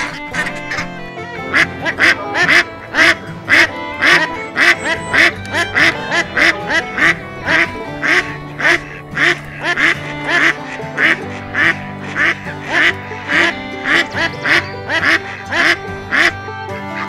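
Duck quacking in a steady rhythm, about two quacks a second, over background music; the quacks start about a second and a half in and stop near the end.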